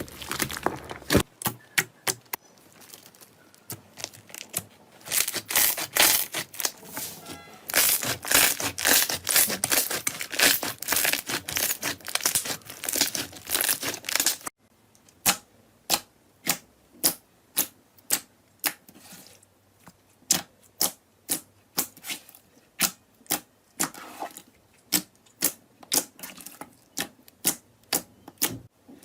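Slime being pressed and squeezed, making crackling and popping clicks: a dense run for the first half, then after a sudden cut about halfway, a slower series of sharp pops about two a second.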